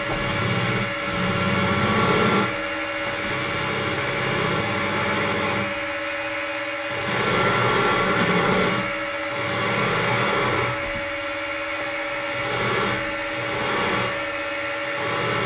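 Bench polishing machine running with a steady hum while a cast pewter piece is pressed against its spinning wheel; the rubbing, grinding noise swells and fades several times as the piece is worked.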